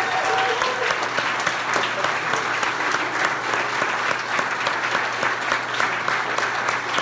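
Crowd applauding steadily, many people clapping at once.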